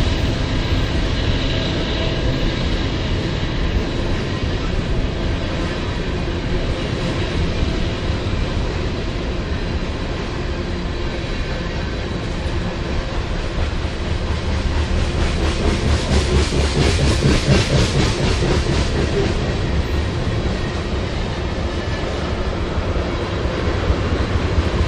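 Freight train tank cars rolling past: a steady rumble of steel wheels on rail with a rhythmic clickety-clack over the rail joints. The clatter grows louder for a few seconds about two-thirds of the way through.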